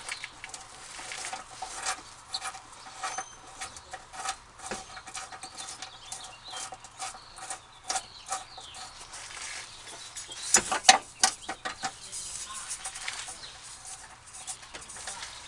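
Irregular clicks and light metal taps from a screw being fitted by hand into an exhaust-system hanger, with a louder cluster of knocks about ten and a half seconds in.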